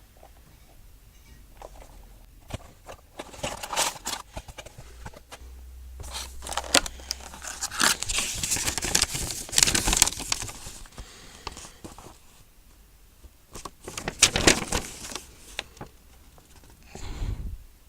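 Toy packaging being opened by hand: crinkling and tearing in several bouts, loudest around the middle, with quieter pauses between.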